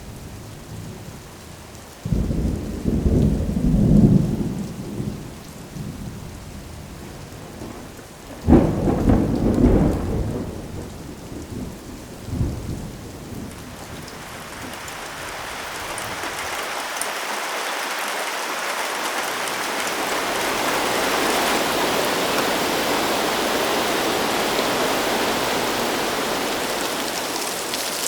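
Thunder rumbling, starting suddenly about two seconds in, with a louder clap about eight seconds in and a smaller one a few seconds later. Heavy rain then swells into a steady hiss of downpour.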